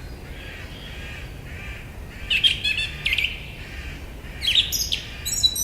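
Forest bird ambience: songbirds chirping and trilling in two quick clusters, about two and a half and four and a half seconds in, over a soft, pulsing chorus of distant birdsong.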